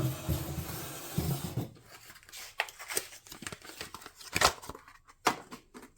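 Packaging being opened by hand: crinkling and tearing with some low handling thumps, then several sharp clicks and snaps.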